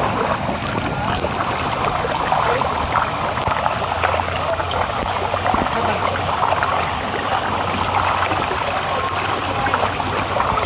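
Steady rush of water running down a water slide's flume.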